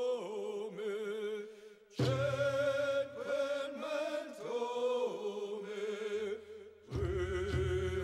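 Background music: a voice singing a long, wavering chant-like melody, with a low pulsing accompaniment coming in about seven seconds in.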